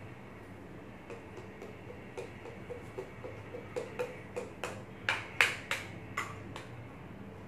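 A quick run of light clicks and taps, about three to four a second, growing louder toward the end: small toy figures being knocked against and set into the cars of a wooden toy train.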